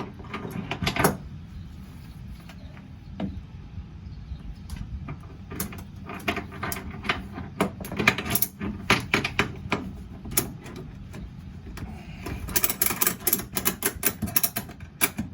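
Ratchet tie-down strap being worked tight, with a run of sharp metallic clicks and clinks that comes thickest near the end.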